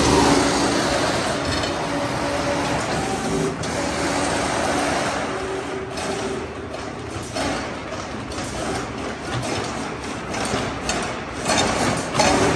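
High-acceleration fiber laser cutting machine making rapid traverse moves: the gantry's servo drives whine in short runs that start and stop over a steady rushing noise, with a quick series of clicks and clacks in the second half.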